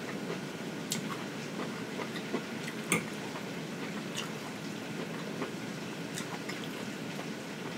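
Steady hiss of rain falling outside, with a few small clicks from a fork picking through a plate of rice, the sharpest about three seconds in.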